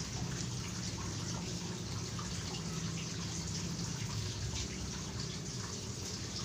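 Steady background hiss like running water, with a low hum underneath. Faint rustling and light ticks come from a cloth fishing-rod sleeve being handled.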